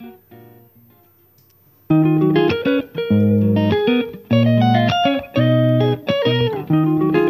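Background music of plucked guitar, soft and fading for the first couple of seconds, then coming back in loud with a steady run of notes.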